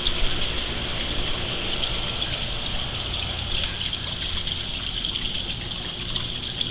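Steady rush of circulating swimming-pool water, with a low pump hum underneath.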